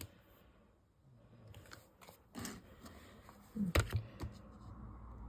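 Tiny plastic building bricks being handled and pressed together: a few short light clicks, the loudest about four seconds in.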